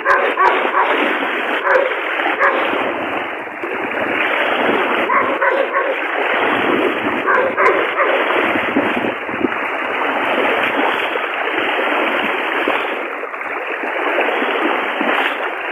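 Rushing floodwater: a loud, steady, dense wash of water, with a few short sharper sounds standing out over it now and then.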